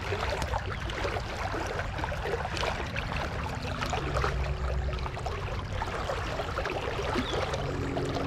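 Fast, shallow river water rushing and splashing over rocks, a steady wash of noise with a light crackle throughout.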